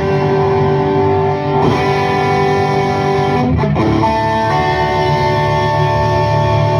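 Electric guitar played through a 1987 Marshall JCM800 2210 valve amp head, ringing out held chords. The chord changes about two seconds in, and a quick slide around three and a half seconds in leads into a new sustained chord.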